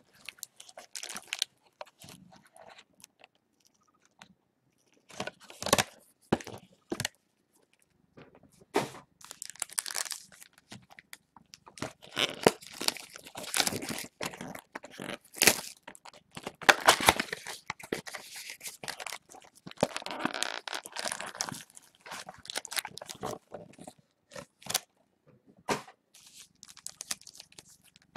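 Trading-card packaging being handled and opened: plastic wrap and pack wrappers crinkling and tearing, in irregular bursts with short pauses between them.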